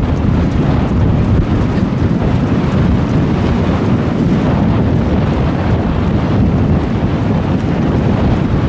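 Heavy wind buffeting the microphone of a camera carried at speed on horseback, a steady low rumbling rush.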